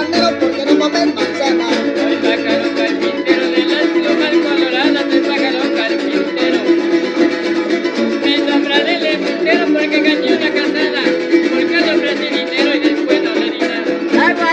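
Veracruz son jarocho string band playing an instrumental passage between verses: a harp and small strummed jaranas keep a steady, lively rhythm.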